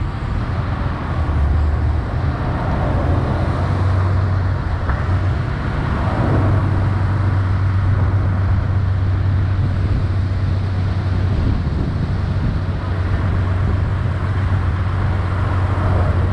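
An engine running steadily with a constant low hum under a broad wash of noise.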